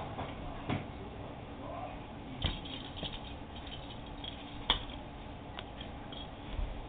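A cat batting a small ball toy about on the floor of a fabric play tent: scattered light taps and rustles, the sharpest about two and a half and four and a half seconds in.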